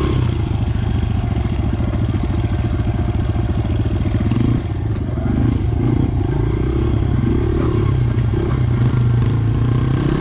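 Dirt bike engine running under way, heard close up. Its note rises and falls with the throttle, with a brief drop as the throttle is rolled off about four and a half seconds in.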